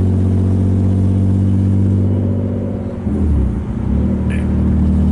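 BMW E36 engine running steadily under way, heard from inside the stripped cabin; about three seconds in the engine note breaks and dips for a moment, then picks up again.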